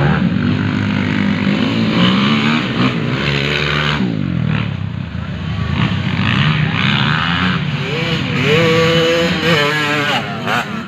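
Motocross dirt bike engines revving on the track, their notes rising and falling over and over as the riders throttle and shift.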